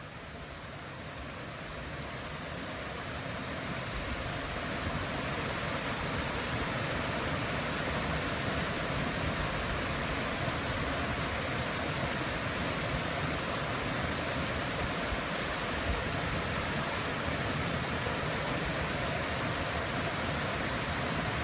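Waterfall: steady rushing, splashing water, growing louder over the first few seconds and then holding even.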